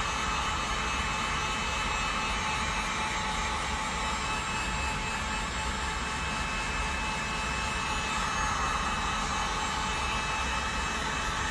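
Chicago Electric heat gun running, a steady rushing hiss of its fan blowing hot air. The hot air is softening a rubber grip wrap so it can be pressed down onto the pistol frame.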